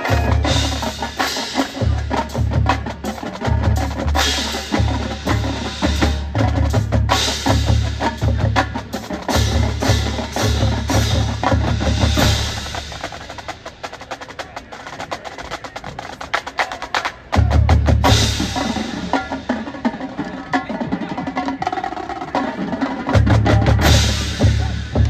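Marching band percussion section playing a drum-heavy passage: rapid snare and tenor drum strokes over repeated heavy bass drum hits, with mallet percussion. The low drum hits drop out for a few seconds past the middle, then come back strongly twice.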